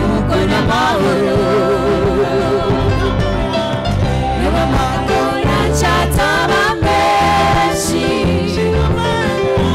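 Live gospel song: a woman lead singer singing into a microphone with a choir of women's voices singing along, over amplified instrumental backing with a steady bass and drums.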